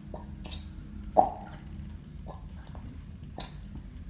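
A few light clicks and knocks of plastic bottles and a lid being handled and opened, the sharpest one about a second in, over a steady low hum.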